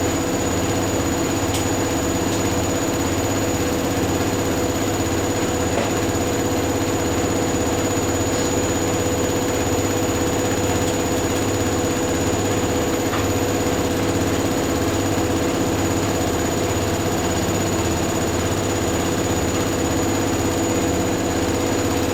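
Two front-loading washing machines spinning together, a Hoover Dynamic Next DXA610IW3 (up to 1600 rpm) and a Whirlpool AWM1850 (up to 1100 rpm). Their drums give a steady hum and whine with an even low pulsing, unchanged throughout.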